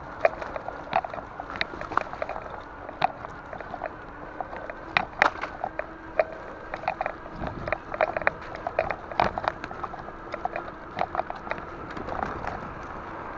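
Mountain bike rattling along a rough single track strewn with bark and leaf litter: frequent irregular clicks and knocks from the bike jolting over the ground, over a steady rush of the tyres rolling on the trail.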